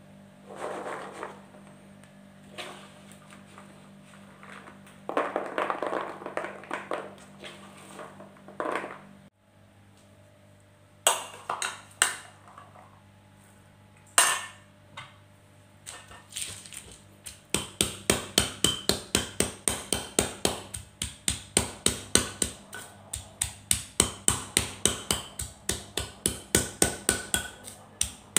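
A stone pestle pounding buni berries in a stone mortar (Indonesian ulekan and cobek): sharp, even knocks of stone on stone, about three a second, through the last ten seconds. Before that come a few clinks of a metal spoon against a bowl, and quieter rattling of berries in a plastic colander.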